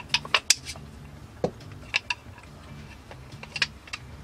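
Light, irregular clicks and taps of a pair of hardwood burl knife-handle scales knocking together as they are handled, several in quick succession in the first second, then a few more spaced out.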